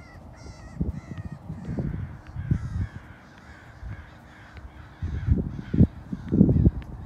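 A bird calling repeatedly, a string of short calls over the first four seconds or so. Dull low thumps sound throughout and grow louder and busier near the end.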